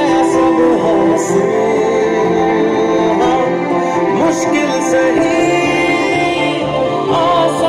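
A song with a singing voice, played from a USB MP3 player module through a 1981 Panasonic RX-5031 boombox's speakers.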